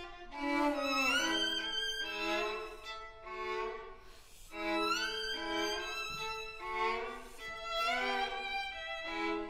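Two violins playing a duet in a contemporary classical piece, with sustained double-stopped notes and several upward sliding notes. There is a brief lull about four seconds in.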